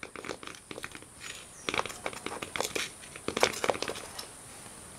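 Knife blade scraping around the inside edge of a metal cake tin, loosening a baked cake from the sides: a run of short scratchy scrapes, busiest in the middle.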